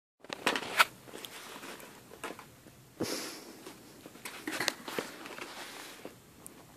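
Handling noise: rubbery raptor-claw gloves pawing and tapping at a paper food tray, a scatter of soft clicks and rustles, with a short hiss about three seconds in.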